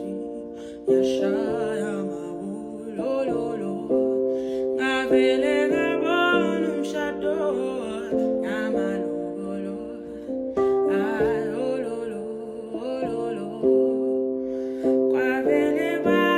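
Background music: a soft song with a woman's singing over steady chords, with a gentle plucked-string accompaniment.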